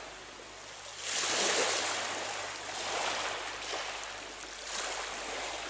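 Sea waves washing onto the shore, a hiss that swells and fades about every two seconds.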